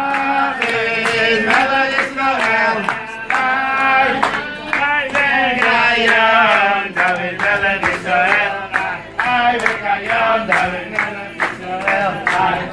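Group of voices singing a Jewish song together, with hands clapping a steady beat, about two to three claps a second.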